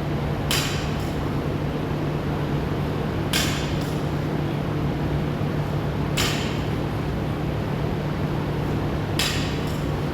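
Gym equipment clanking four times, about once every three seconds, in step with the repetitions of a workout, over a steady machine hum.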